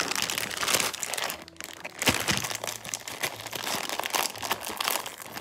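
Plastic snack bag crinkling as it is handled and pulled open by hand, with a sharper crackle about two seconds in.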